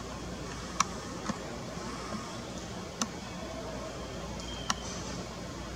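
Steady low background noise with a faint hum, broken by four brief sharp clicks spread through, the first and last the loudest.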